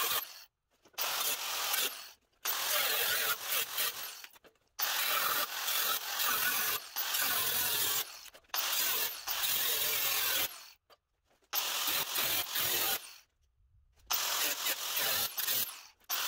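Electric angle grinder with a thin cut-off disc cutting through sheet-steel body panel, a harsh grinding hiss. It comes in runs of one to three seconds, broken several times by brief sudden silences.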